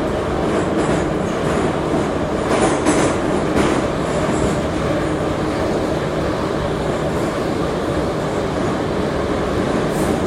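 A type 81-717/714 metro train running at speed through a tunnel, heard from inside the car: a steady rumble of wheels and running gear, with a few clacks from rail joints about three seconds in.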